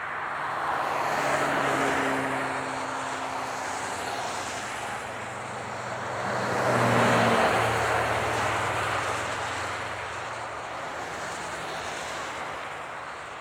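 Highway traffic: a steady wash of tyre and engine noise from passing vehicles. It swells as one vehicle goes by about two seconds in and a louder one around seven seconds in, whose low engine hum drops in pitch as it passes.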